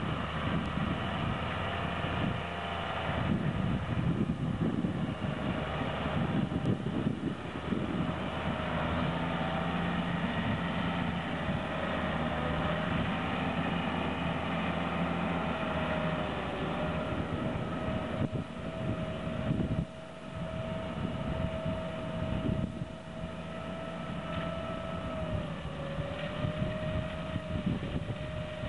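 New Holland tractor running steadily while pulling a Monosem eight-row maize planter, with a steady whine above the engine that dips slightly in pitch now and then.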